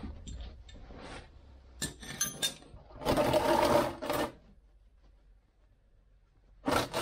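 Ratchet wrench with a 17 mm socket clicking in quick runs as the oil drain plug is loosened, among sharp metallic tool clinks; the loudest run comes about three seconds in and lasts about a second.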